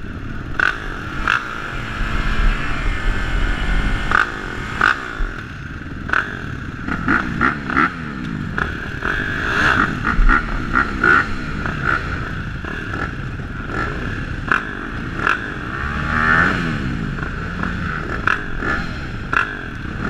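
A row of motocross bikes idling at the starting gate, their riders blipping the throttles in many short, sharp revs while waiting for the gate to drop.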